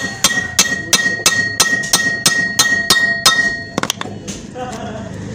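A hammer taps lightly and steadily on a steel shaft seated in a blind needle bearing in a Honda CD70 engine crankcase, about three ringing metal blows a second. Each blow drives the shaft into candle wax packed behind the bearing, which slowly pushes the bearing out of its bore. The tapping stops a little after three seconds, after a final couple of blows.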